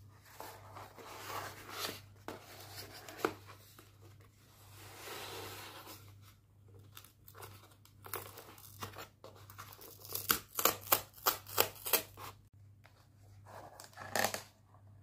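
Cardboard mailer box handled on a wooden table: scraping and rustling as it is slid and turned over, with a single sharp click early on, then a quick run of about eight sharp strokes on the cardboard a little past the middle and one more burst near the end.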